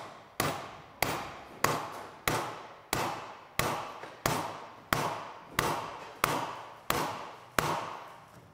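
Steady hammer blows on the nut-capped end of a moped crankshaft, about one every two-thirds of a second, each ringing briefly, driving the crank into its crankcase bearing.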